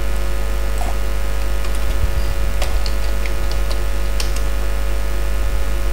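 A handful of short, scattered computer keyboard key clicks over a steady low electrical hum.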